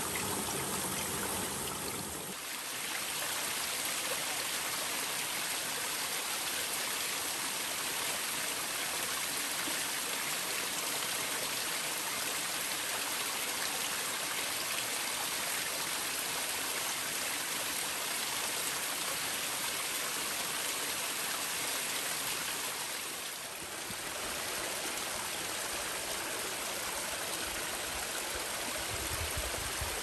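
Waterfall and mountain stream, water rushing steadily over rocks in an even hiss. The rush dips briefly twice, about two seconds in and again past the middle, and a deeper rumble joins near the end.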